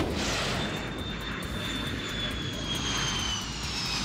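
B-52 bomber's jet engines: a steady rush with a high whine that slowly falls in pitch.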